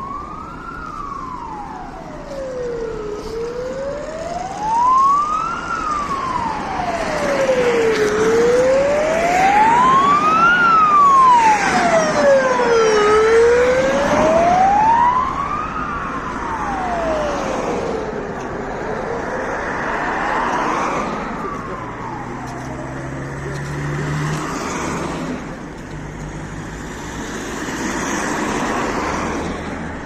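Ford Transit resuscitation ambulance's siren on a slow wail, rising and falling about every five seconds. It grows loudest about halfway through as the ambulance passes, then fades into road traffic noise in the last few seconds.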